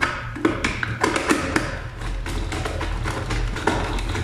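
Irregular clicks and taps of hands working wires and a screwdriver at the terminals of timer relays mounted on a wooden board, over a steady low hum.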